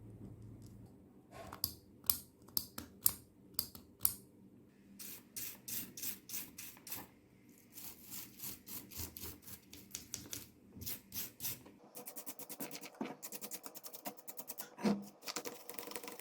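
Sharp clicks and taps from handling and working the mini angle grinder's switch parts during repair, turning into a fast run of small ticks about twelve seconds in.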